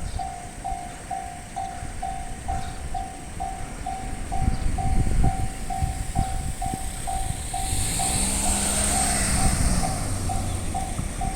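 Japanese railway level crossing alarm ringing its electronic bell in even dings about three times a second, while a train passes over the crossing, loudest about eight to ten seconds in.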